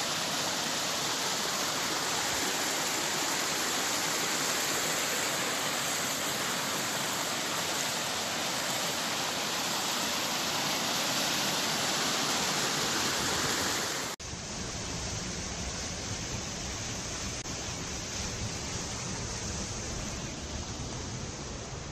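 Mountain stream rushing over boulders in white-water rapids, a steady noise of falling water. About fourteen seconds in it breaks off and starts again, deeper and fuller.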